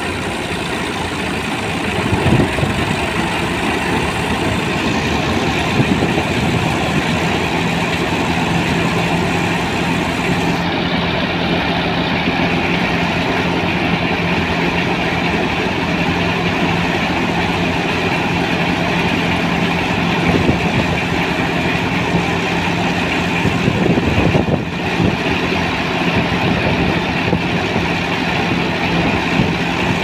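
Tractor-powered wheat thresher running: the tractor's diesel engine under steady load driving the thresher's belts and pulleys, with a continuous mechanical hum and whir.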